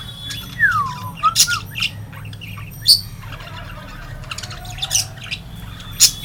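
Budgerigars calling: a falling whistle about half a second in, then several sharp squawks and chirps at irregular intervals.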